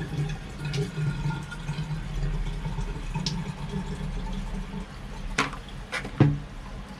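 Water running from a newly fitted shower mixer faucet, with a few sharp clicks and a louder knock about six seconds in.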